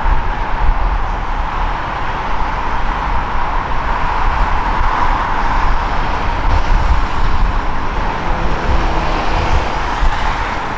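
Steady rumble and hiss of moving vehicles, with no distinct horn, bell or clank. It is most likely road traffic mixed with the departing Amtrak train.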